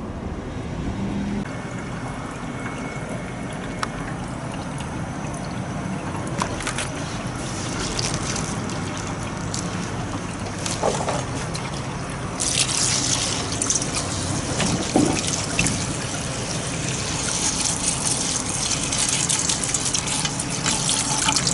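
Kitchen tap running into a stainless steel sink as a bowl of wild onions is rinsed by hand, with splashing and light knocks; the water gets louder and more hissing suddenly a little past halfway.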